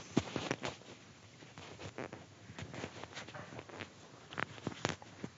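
Microphone handling noise: scattered faint clicks and rustles as the microphone is touched and moved, with a few sharper clicks past the middle.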